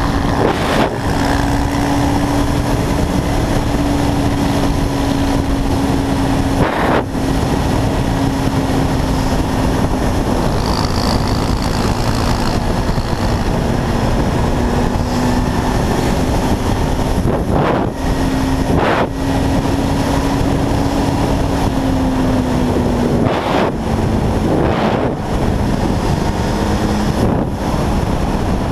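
Quad bike engine running at a steady cruising speed, heard from the bike itself under a dense rush of wind and road noise. Its note eases down a little near the end, and a few brief whooshes cut through.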